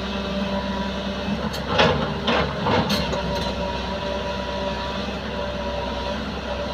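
JCB 3DX backhoe loader's diesel engine running at a steady drone. A few short, harsh scraping noises come about two seconds in, from the machine working.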